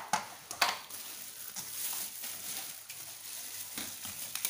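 Sharp plastic clacks as vacuum-cleaner parts, the hose and floor brush, are handled and set down on a tile floor: two in the first second, then lighter knocks toward the end.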